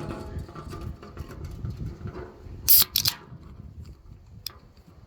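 A beer container being handled, with light knocks and clicks, then two loud, sharp, hissing cracks in quick succession a little past the middle, as it is opened. A smaller click follows near the end.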